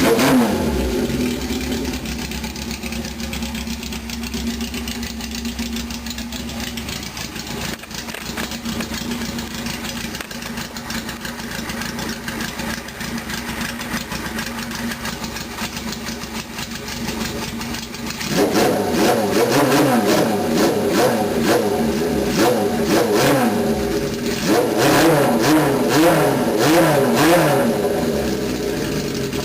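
Honda CB750 K8 air-cooled SOHC inline-four with a Yoshimura header catching and settling into a steady idle. After about eighteen seconds it is revved in a run of quick throttle blips, pitch rising and falling with each, through to the end.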